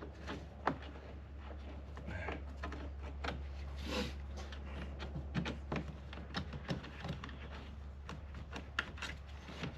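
Screwdriver prying at plastic retaining clips on a car's cowl cover: a run of irregular small clicks and scrapes, over a steady low hum.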